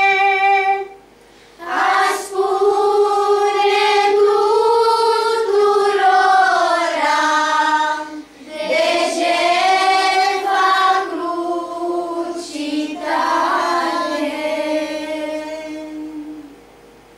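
Children's voices, a girl soloist to the fore, singing the closing lines of a slow Romanian Christian hymn in three long phrases with short breaths between. The last note dies away shortly before the end.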